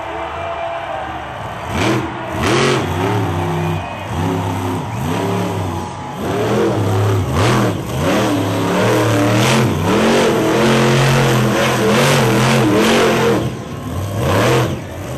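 Superman monster truck's supercharged V8 engine revving hard again and again, its pitch climbing and dropping with each burst of throttle. A few short sharp bangs stand out along the way.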